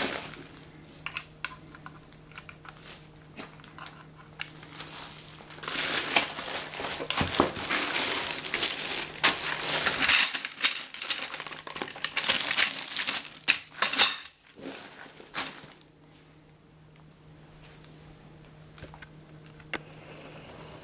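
Clear plastic packaging bags crinkling as they are handled, with light scattered rustles at first, a dense stretch of loud crinkling through the middle, then it dies down to faint rustling near the end.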